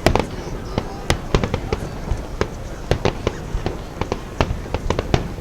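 Fireworks bursting overhead: an irregular string of sharp bangs and crackles, about two or three a second, over a steady low rumble.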